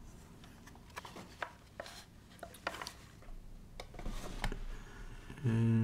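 Clicks, light knocks and rubbing as a graphics card with its plastic blower-cooler shroud is handled and turned over on a cloth desk mat. Near the end comes a brief low hum, the loudest sound.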